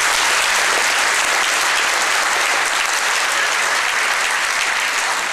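Large audience applauding steadily, with the clapping easing slightly near the end.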